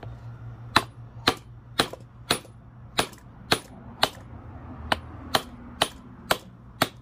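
About a dozen sharp hammer blows, roughly two a second, on a brass drift, knocking a U-joint bearing cap out of the yoke of a 2004 Jeep Wrangler TJ's double-cardan rear drive shaft.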